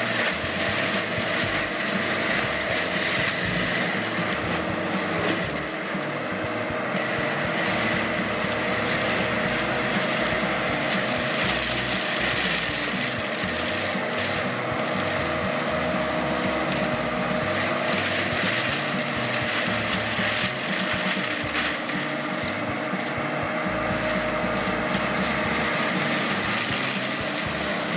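Heavy forestry machine running steadily under load: an engine with a steady whine over continuous grinding noise, with no pauses.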